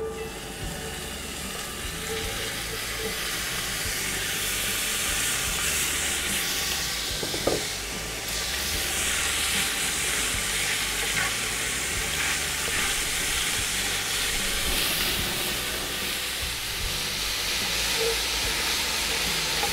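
Diced smoked pork belly hitting hot oil in a cast-iron Dutch oven and sizzling steadily as its fat renders, stirred with a wooden spatula. There is one sharp knock about seven and a half seconds in.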